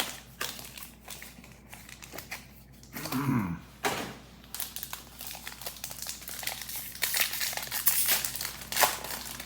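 Foil Pokémon booster pack wrappers and cards crinkling and rustling as they are handled, with many small crackles and clicks; the crinkling is thickest in the last couple of seconds.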